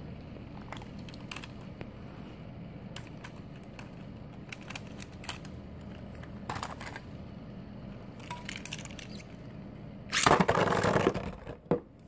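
Beyblade spinning tops whirring in a plastic stadium, with scattered light clicks as they strike each other. Near the end comes a loud clattering clash lasting about a second.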